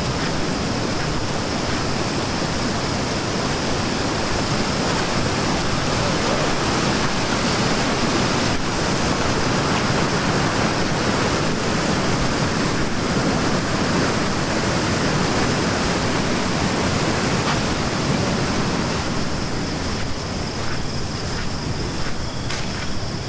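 A fast-flowing river rushing loudly and steadily, running high and swift after a night of heavy rain.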